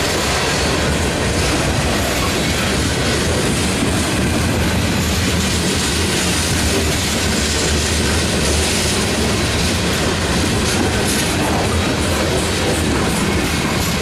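Loaded covered hopper cars of a freight train rolling past at close range: a loud, steady rumble of steel wheels on rail, with clicks over the rail joints growing more frequent near the end.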